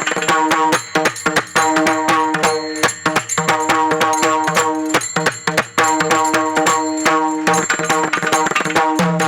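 Varkari kirtan music: mridang drumming in fast, dense strokes over held melodic notes that move step by step.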